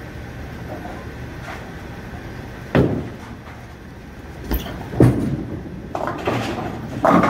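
Bowling alley ambience: a low steady rumble with a loud sharp knock a few seconds in. The Storm Proton Physix bowling ball lands on the wooden lane with a loud thud about five seconds in and rolls down it, and the pins crash near the end.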